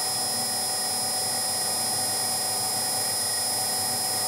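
Bench mill-drill running steadily with a small drill bit in its spindle, its motor and drive giving an even whine with several high steady tones.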